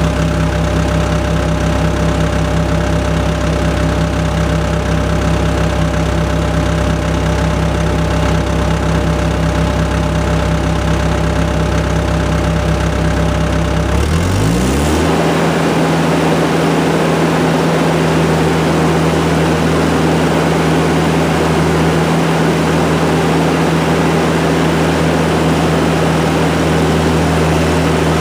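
ASV compact track loader's diesel engine running steadily at low speed, then throttled up about halfway through, its pitch rising over about a second and holding steady at the higher speed.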